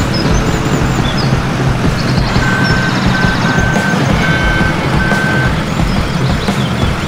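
A heavy vehicle's diesel engine running steadily, with a reversing alarm beeping five times in the middle. Birds chirp faintly in the background.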